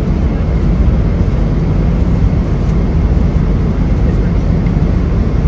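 Steady low rumble of a jet airliner cabin in flight, heard from a passenger seat.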